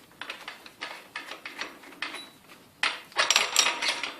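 Headset press being unscrewed and lifted off a bicycle head tube after pressing in the headset cups: a run of small metal clicks and rattles, then a louder burst of clanking about three seconds in.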